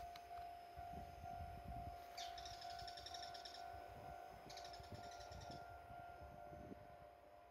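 High, fast trilling call from a small animal: about a second long, repeated three times roughly two seconds apart, over a faint steady hum.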